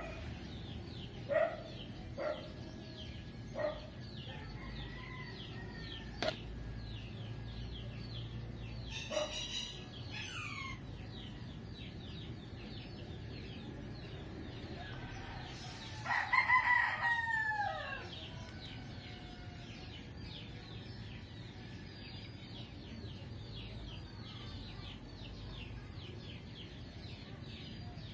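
A rooster crows once, loudly, about two-thirds of the way in, the call falling in pitch at its end. A few shorter calls come near the start and another near the middle, over a steady run of high chirping.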